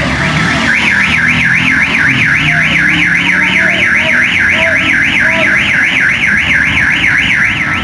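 Toll booth's electronic alarm warbling rapidly, its pitch sweeping up and down about four to five times a second, loud and unbroken. It sounds while the barrier arm is held up and vehicles pass through the lane without paying.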